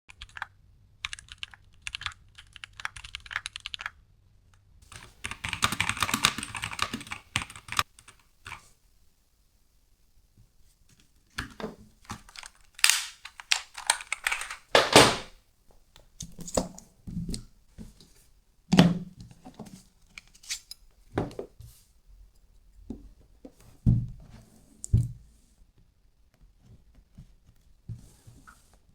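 A Keychron Q2 mechanical keyboard being unboxed: quick runs of clicks at first, then stretches of rustling and tearing as the packaging is pulled open, and a few dull thumps as the box and keyboard are set down.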